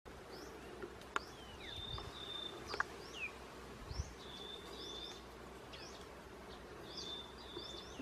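Faint birdsong in woodland: one bird repeats a phrase of a quick chirp and two level whistles three times, among other short chirps and falling whistles. Two sharp clicks, like twigs snapping, come about one and three seconds in.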